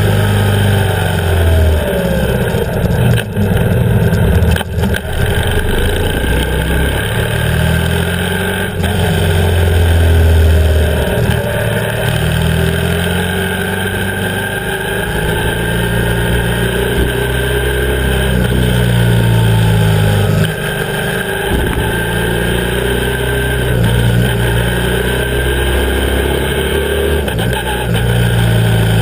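BMW R 1150 GS boxer twin engine running while riding, its note rising and falling with the throttle, over steady wind and road rush. There is a brief dip in level about two-thirds of the way through.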